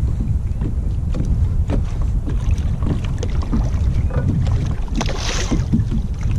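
Wind buffeting the microphone on a kayak, a steady low rumble with scattered small knocks against the hull, and a brief hissing splash about five seconds in.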